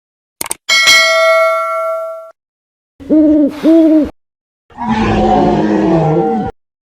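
A string of separate comedy sound effects. First a quick double click, then a bell-like ding that rings for about a second and a half and cuts off. Then two short hooting notes that rise and fall in pitch, and finally a noisier sound with a wavering tone for about two seconds.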